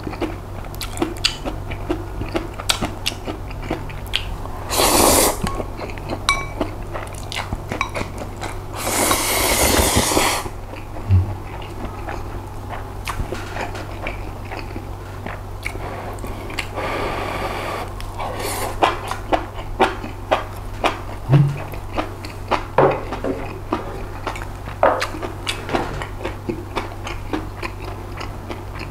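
Close-miked eating of chewy spicy noodles and pork-belly rolls: two long noisy slurps, one about five seconds in and a longer one around nine to ten seconds, then steady chewing with many small wet clicks.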